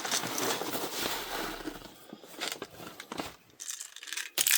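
Crinkling and rustling of plastic packaging with scattered small clicks, then near the end a louder rush of airsoft BBs rattling as they pour.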